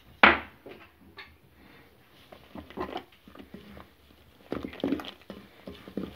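Whisk mixing flour into chocolate cake batter in a bowl: a sharp knock against the bowl just after the start, then irregular soft taps and clicks that grow busier in the last couple of seconds.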